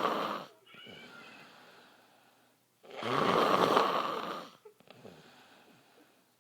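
A man snoring loudly in his sleep. A snore ends just after the start, then comes a softer breath, one long loud snore about three seconds in, and another softer breath after it.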